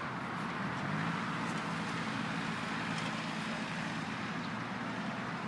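Kioti CK2810 compact tractor's diesel engine running at a steady speed, an even hum with no change in pitch or level.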